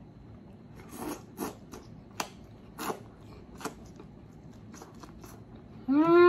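Close-up chewing of battered, deep-fried crab, with about eight sharp crunches spread unevenly through the middle. Near the end a loud, appreciative "mmm" that rises and then falls in pitch.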